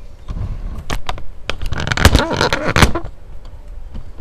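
Computer mouse clicks and desk handling noise, a run of sharp separate clicks, with a louder scraping, creaking stretch lasting about a second, about two seconds in.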